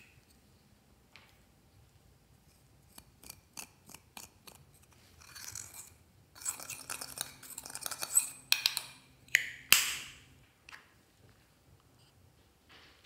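A metal spatula scraping and crumbling pressed powder eyeshadow out of its plastic compact: light clicks of handling, then about five seconds in a run of gritty scrapes, with a few louder strokes, for roughly five seconds.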